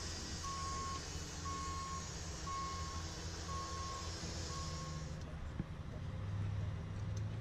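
Vehicle reversing alarm beeping about once a second, each beep a steady mid-pitched tone about half a second long, over a low engine rumble. The beeping stops about five seconds in.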